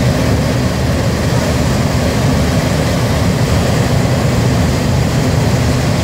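Rescue hovercraft's engines and ducted propellers running in a loud, steady drone with a low hum as it edges slowly into its boathouse on its inflated skirt.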